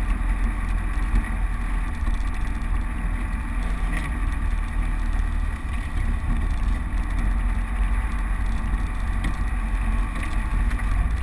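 Land Rover Defender driving along an unsurfaced green lane, its engine and drivetrain giving a steady low rumble.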